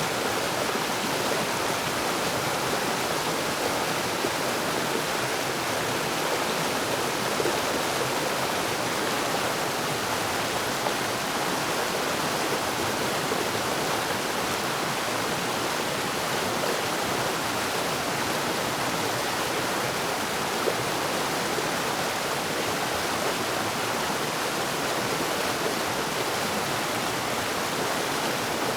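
Forest waterfall, its water falling and rushing in a steady, unbroken wash of noise.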